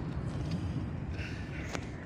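Car interior during driving: a steady low engine and road rumble, with a faint click or two near the end.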